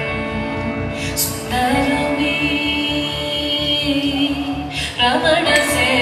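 Music with a steady beat and a melody line over it.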